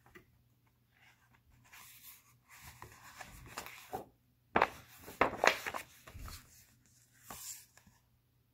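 Page of a hardcover picture book being turned and the book handled: paper rustling, with a few sharper flaps and knocks of the page and cover, loudest about four and a half to five and a half seconds in.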